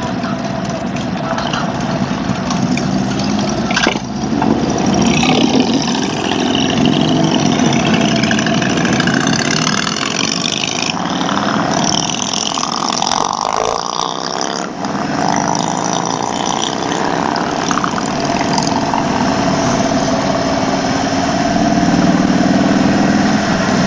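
Motorcycle engine running while riding, over a steady rush of wind and road noise; the engine pitch sweeps down and back up around the middle, as with slowing or a gear change.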